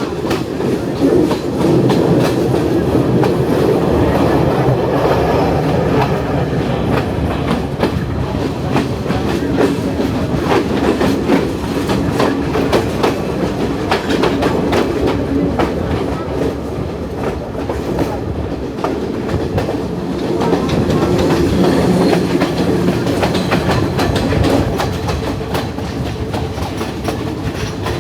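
Passenger train running on the Sri Lankan hill-country line, with a steady rumble and wheels clicking over the rail joints throughout.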